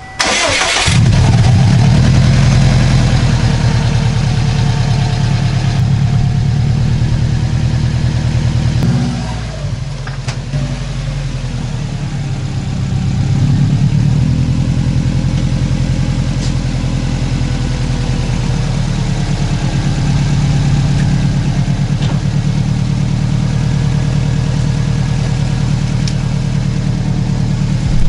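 Subaru WRX's turbocharged flat-four engine cranked on the starter and catching about a second in, then idling steadily just after a fresh oil change. Its level drops around nine seconds in and rises again a few seconds later.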